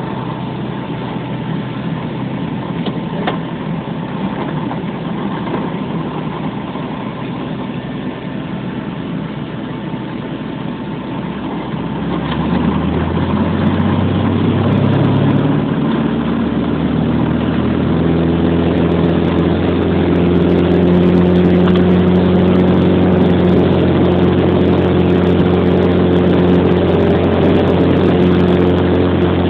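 A small plane's propeller engine heard from inside the cabin, running steadily while the plane taxis. About halfway through, the power comes up with a rising pitch, and the engine then runs louder and steady at high power for the takeoff roll.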